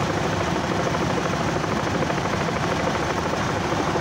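Steady engine drone with a low hum.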